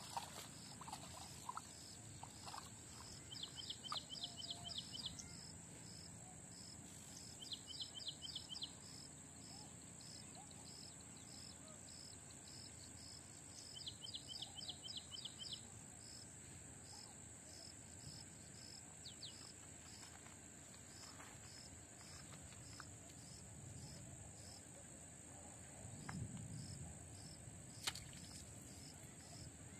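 Faint outdoor ambience of a steady, high-pitched insect drone with a quick, even pulsing chirp. It is broken three times by short trains of rapid high chirps, and a single sharp click comes near the end.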